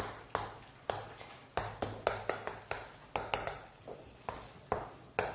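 Chalk writing on a blackboard: a string of short, sharp taps at irregular spacing as letters are written out by hand.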